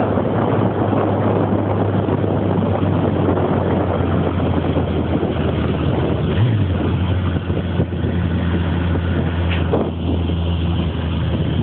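Sport motorcycle engine running at a steady highway cruise, heard on board with heavy wind rush over it; the engine note rises briefly about six and a half seconds in.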